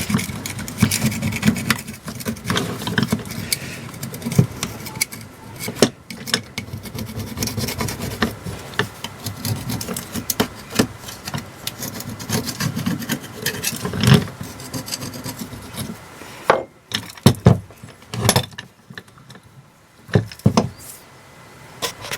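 A hand scraper scraping and rubbing caked dirt off a metal trolley jack, in irregular strokes with scattered knocks, quieter near the end.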